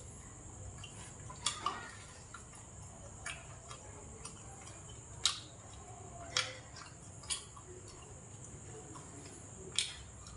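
A person chewing food with mouth closed, giving about seven short wet smacking clicks at uneven intervals over a steady faint high-pitched hiss.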